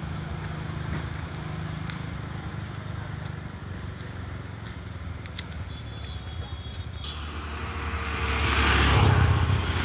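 A motor vehicle's engine running with a steady low hum, then a louder rush building from about seven seconds in and peaking near the end as a vehicle comes close.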